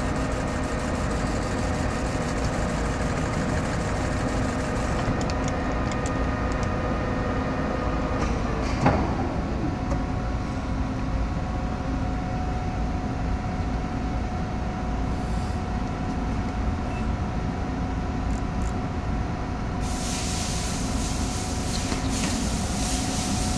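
Lathe and tool-post grinder running while grinding a rubber roller's shaft: a steady machine hum with several steady tones. A fine grinding hiss sits on top for the first few seconds and comes back about twenty seconds in, with one short knock about nine seconds in.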